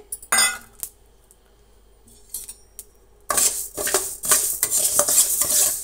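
Perforated metal spatula stirring coriander seeds as they dry-roast in a metal pan, the seeds rattling and the spatula scraping the pan. There is a brief clatter near the start, a lull, then steady scraping from about three seconds in.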